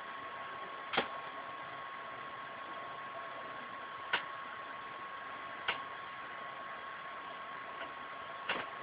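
Steady background hiss with a faint constant whine, broken by four short soft clicks spread through it.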